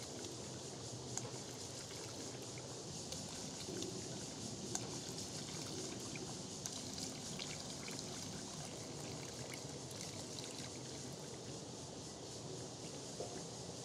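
Liquid trickling from a steel pot into a large vat of soy milk as a wooden paddle stirs and sloshes it, a steady pouring sound with a few light knocks.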